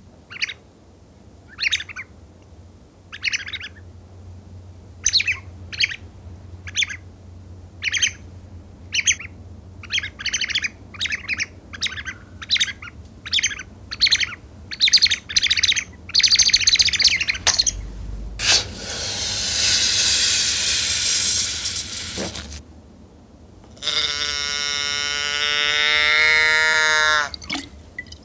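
Short, high bird-like chirps, spaced out at first and then coming faster and closer together. They are followed by about four seconds of loud hissing rush, then a long pitched tone that slides slightly downward and cuts off near the end.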